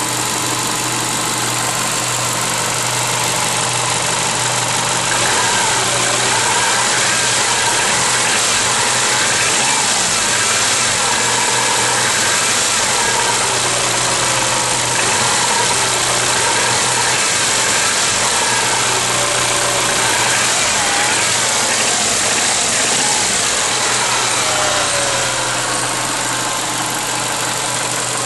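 Subaru EJ202 2.0-litre flat-four running steadily while hot, with a knock that the owner places at the fourth cylinder.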